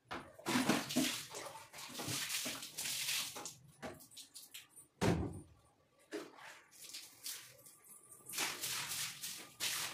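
A wet kitchen floor being scrubbed with a grass broom, with water splashing from a mug and bucket. A single heavy thump comes about five seconds in, with a longer stretch of brisk scrubbing near the end.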